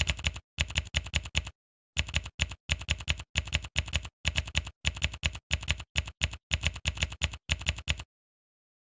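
Keyboard typing sound effect: short runs of quick keystroke clicks broken by dead-silent gaps, stopping about eight seconds in.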